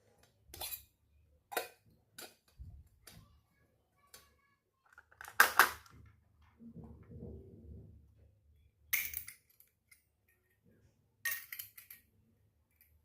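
Miniature toy kitchenware pieces clinking and clattering as they are handled and set down, a handful of sharp knocks a second or two apart, the loudest about halfway, followed by a softer scraping.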